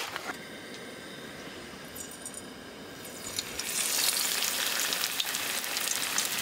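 Pike frying in hot oil in a pan, a steady sizzle that grows much louder about three and a half seconds in as a piece of fish is laid into the oil.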